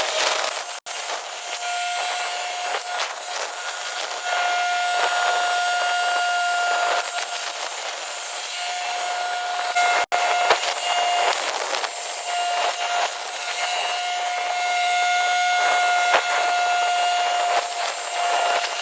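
TimberKing band sawmill slicing through a sycamore log: a steady rushing saw noise with a whining tone that fades in and out as the blade cuts.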